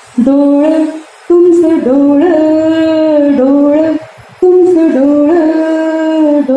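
A woman singing a Marathi bhavgeet solo and unaccompanied into a handheld microphone, holding long notes with brief pauses for breath about a second in and again about four seconds in.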